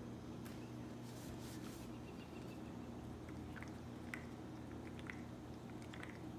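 Small dog faintly chewing and nibbling at green plastic Easter eggs in his bed, with a few soft clicks, over a steady low hum.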